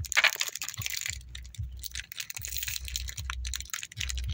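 A run of light clicks, taps and rustles: Parle-G biscuits being taken out of their plastic packets one by one and laid on a plate, the wrappers crinkling.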